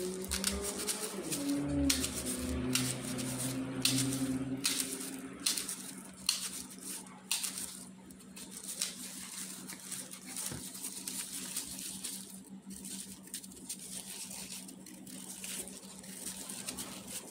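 Disposable plastic gloves crinkling and a knife scraping through apple peel as an apple is peeled by hand, in a run of irregular crackles and clicks. A low pitched sound hangs in the background for the first five seconds.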